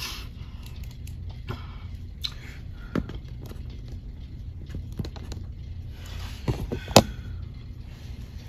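Plastic action figures being handled and set in place: a few light clicks and knocks, the loudest about seven seconds in, over a low steady hum.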